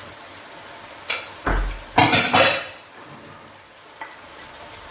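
Kitchenware knocking against a large metal cooking pot as diced bell pepper is tipped and scraped from a plate into it: a click, a dull thump, then a loud clattering rattle about two seconds in, and a light tap near the end.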